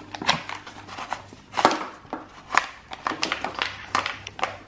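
Irregular clicks and knocks of hard plastic and wiring being handled as indicator wires and connectors are fed through the Yamaha Ténéré 700's stock plastic tail unit. The sharpest knocks come a little under two seconds in and again about two and a half seconds in.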